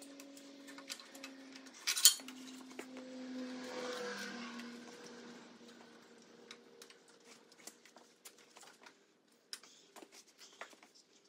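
Scattered clicks and light metal clinks of a hand tool working on an ATC's wiring harness and frame. There is one sharp snap about two seconds in.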